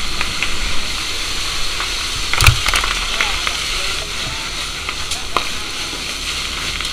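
Fire hose nozzle spraying water, a steady hiss, with one sharp knock about two and a half seconds in.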